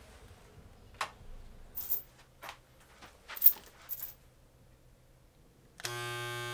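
A few scattered knocks and clicks, then electric hair clippers switch on near the end and buzz steadily.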